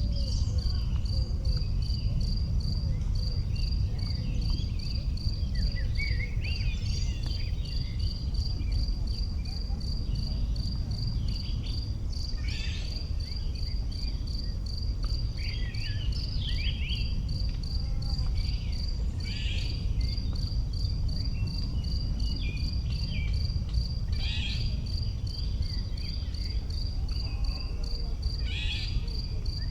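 A cricket chirping in a steady, even rhythm at one high pitch, about two to three chirps a second. Occasional short calls come in, over a steady low rumble.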